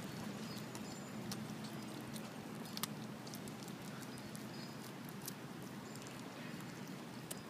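Dog licking soft ice cream from a waffle cone: faint, irregular wet clicks and smacks of the tongue, with one sharper click about three seconds in.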